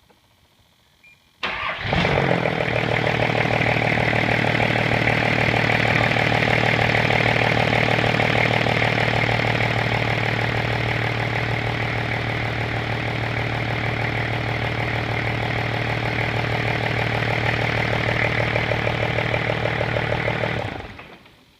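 Freshly rebuilt Nissan TD42 4.2-litre inline-six diesel engine, with no intake manifold fitted, starting abruptly and running steadily for about 19 seconds, then shut off near the end.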